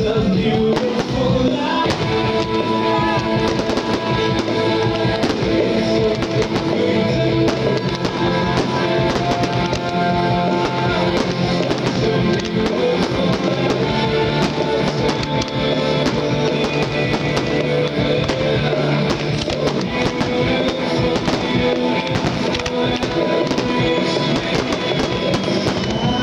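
Music with instruments and a beat played loudly over a sound system, with many sharp firework bangs and crackles going off throughout.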